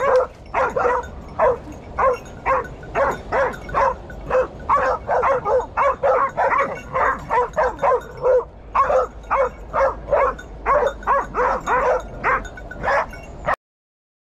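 Hunting dog barking in a fast, unbroken series of about three barks a second, baying a wild boar hidden in the brush. The barking stops abruptly near the end.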